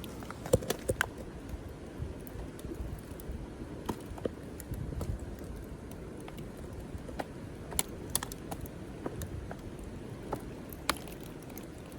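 Irregular sharp clicks and ticks of river ice cracking, scattered over a steady low rushing background.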